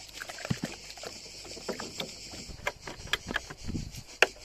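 Wooden stick stirring kaolin clay slurry in a cut-off plastic bottle: irregular knocks and scrapes of the stick against the plastic and the sloshing of the milky water, with one sharper knock near the end.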